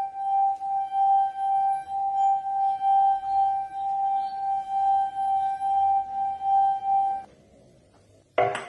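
Drinking glass with liquid in it, its rim rubbed in circles with a wet finger, singing one steady high tone that swells and dips in a regular rhythm. The tone stops about seven seconds in, and a sharp knock comes near the end.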